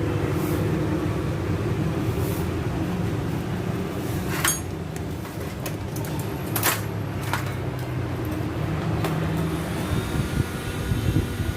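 Steady low rumble of vehicle traffic, with a few sharp clicks in the middle and a faint thin tone near the end.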